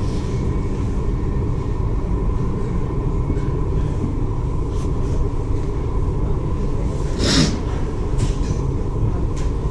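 Steady low rumble of a large passenger ferry under way, with a faint steady hum through it and a brief rush of noise about seven seconds in.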